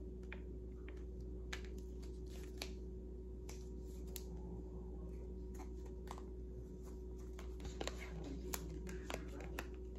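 Tarot cards being handled and shuffled: scattered light clicks and rustles, coming more often near the end, over a steady low hum.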